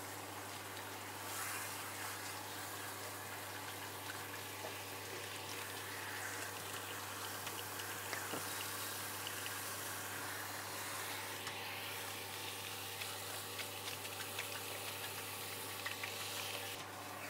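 Handheld shower head spraying water through a dog's wet coat and onto the grooming tub, a steady hiss, as conditioner is rinsed out. A steady low hum runs underneath.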